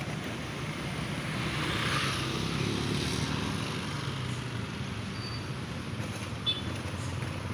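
Road traffic passing close by: the engines and tyres of cars, motorbikes and a minibus, swelling as a vehicle goes by about two seconds in and then easing back to a steady run. A brief click comes near the end.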